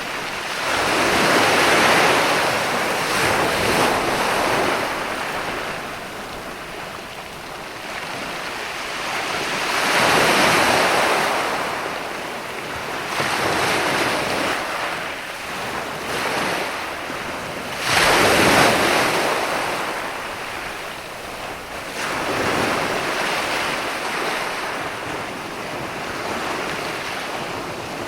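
Ocean surf: waves breaking and washing in, each swelling and fading over several seconds, with the sharpest and loudest break a little past halfway. Wind hisses steadily underneath.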